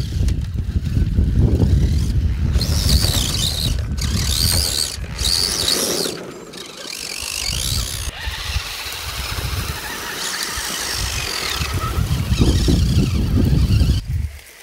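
Electric motors and gear drivetrains of 1/10-scale RC crawler trucks whining, rising and falling in pitch with the throttle, over a low rumble. The whine is strongest a few seconds in and again in the second half.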